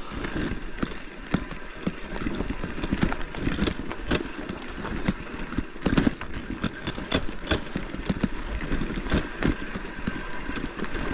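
Touring bicycle rolling down a steep, rough dirt track of leaves and loose stones: the tyres crunch over the ground and the bike rattles with many irregular knocks and clicks over a low rumble.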